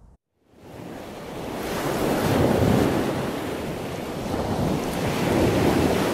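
Brief dead silence, then a rushing, surf-like noise that rises over about a second and a half and holds steady. It is an outro sound effect laid under the animated logo.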